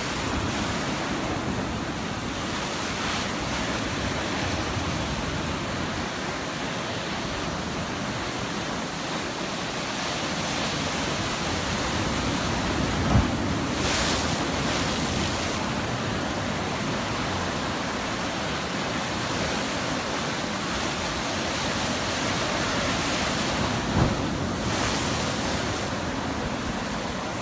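Ocean surf breaking and washing ashore, a steady rushing noise with wind on the microphone. Two brief low thumps, about halfway through and again near the end, each followed by a louder hiss of wash.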